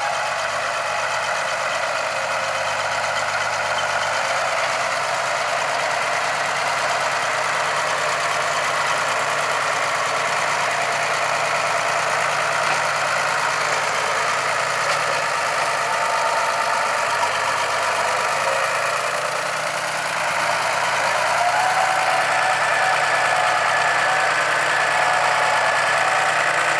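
Tractor diesel engine running under load while a front-loader tractor pushes and packs chopped maize on a silage pile. It gets louder about 21 seconds in as the tractor comes close, with its pitch rising slightly.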